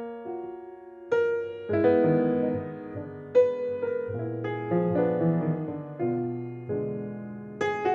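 C. Bechstein grand piano playing a slow jazz ballad. Sparse chords are struck and left to ring, and the chords grow fuller, with lower notes added, a couple of seconds in.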